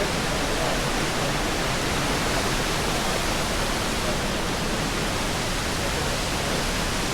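Rushing water of a mountain creek cascade: a steady, even hiss with no breaks.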